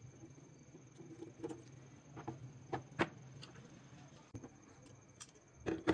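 Small steel parts of a rusty Tokarev TT-30 pistol clicking and clinking against the frame as they are taken out by hand: a scattering of light, sharp clicks, the loudest about three seconds in and just before the end, over a steady low hum.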